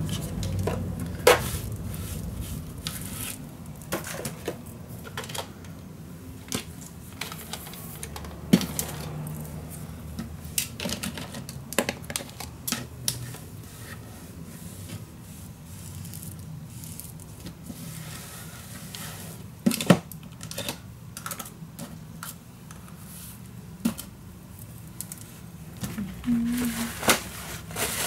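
Scattered, irregular light taps and clicks of painting supplies being handled on a tabletop, a few of them sharper knocks.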